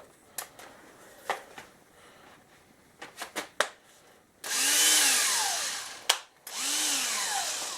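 Vintage Milwaukee 12-volt cordless drill run twice in short bursts, about a second and a half each. Each burst speeds up and then winds back down on the trigger. A few clicks and knocks of handling come before them.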